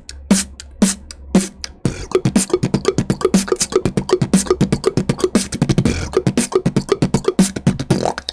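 Mouth beatboxing: a basic beatbox rhythm mixed with a mouth-made imitation of water being poured from a bottle, built from tongue clicks and pops. It opens with a few sharp strokes about two a second, then about two seconds in turns into a dense run of rapid clicks and short pitched pops.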